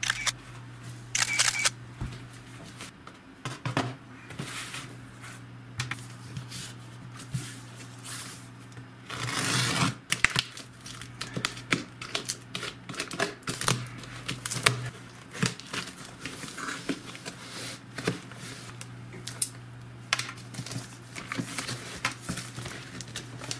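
A taped cardboard parcel being handled and opened by hand: scattered clicks, knocks and rustles of tape and cardboard flaps, with a longer rasp about nine seconds in, over a steady low hum.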